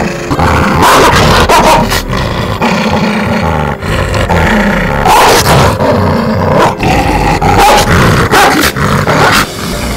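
A dog growling in repeated rough bursts as she bites and worries at her own hind leg, part of the compulsive self-biting for which she is being examined.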